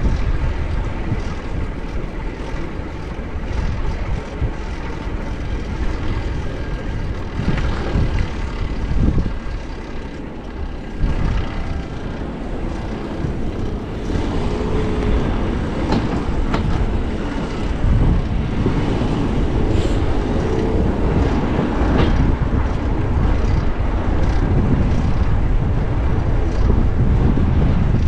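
Wind rushing over the microphone and city traffic going by while riding a bicycle, a steady low rumble throughout.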